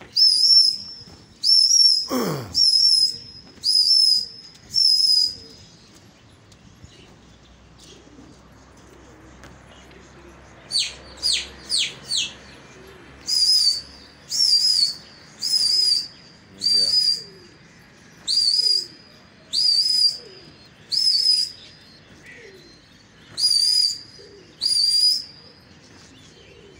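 A pigeon keeper's loud, shrill finger whistles, repeated one after another, each about half a second long, used to keep his flock of pigeons flying. About eleven seconds in comes a quick run of four short whistles that fall in pitch.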